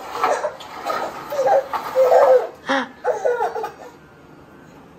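A one-year-old baby laughing in a run of short giggles that stop about four seconds in.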